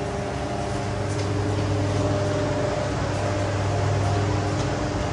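A steady machine hum with a few faint steady higher tones above it and a couple of light ticks.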